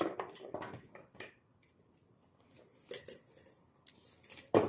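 Dried jujubes and herbs being handled and put into a container: a quick cluster of light clicks and rustles, a few more about three seconds in, and a louder clatter near the end.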